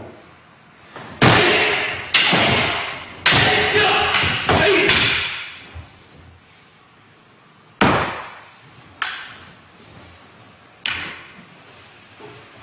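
Wooden staff (bō) and wooden sword striking each other in a kata exchange. Four loud clashes with shouts come in quick succession in the first five seconds, then three sharper, lighter clacks, each ringing on in the hall.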